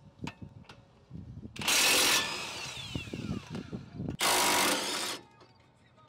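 Cordless impact wrench hammering in two short bursts, the first about half a second long and the second about a second long. A falling whine follows the first burst as the motor spins down, and small metallic clicks and knocks fall before and between the bursts.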